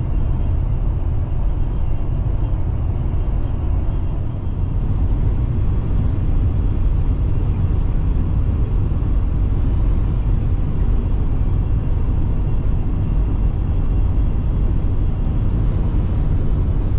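Steady road and engine rumble of a pickup truck cruising at highway speed, heard from inside the cab.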